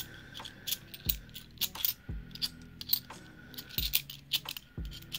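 Australian twelve-sided cupronickel 50-cent coins clinking against one another as they are slid one by one off a stack held in the hand: an irregular run of light, sharp metallic clicks.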